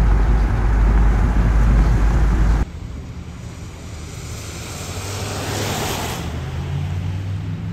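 Wind rumbling on the microphone, cut off suddenly about two and a half seconds in. Then a quieter stretch with a low hum, in which a car passes on the wet road, its tyre hiss rising and falling over about two seconds.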